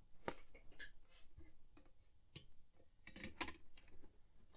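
Faint, scattered light clicks and taps from a printed circuit board being turned over and handled in a metal board holder, with a small cluster of clicks a little after three seconds.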